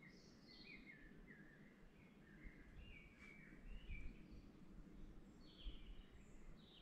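Faint birdsong in a forest: many short, quick chirping notes, several stepping down in pitch, over a low rumble.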